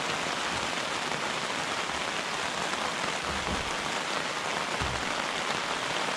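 Steady rain falling, an even hiss, with a couple of faint low thuds about halfway through.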